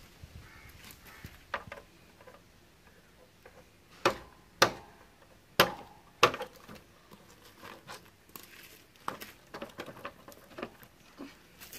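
Handling sounds from work on a motorcycle's front wheel and brake drum: scattered sharp clicks and knocks, four loud ones close together about four to six seconds in, among fainter taps.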